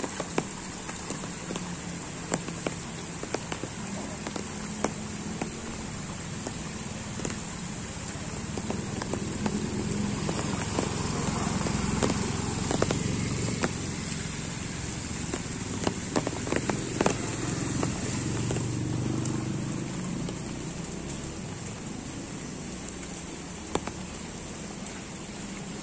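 Steady heavy rain falling on flooded ground, with scattered sharp clicks close by. About halfway through, a motor scooter rides past through the floodwater, its engine and splashing rising and then fading.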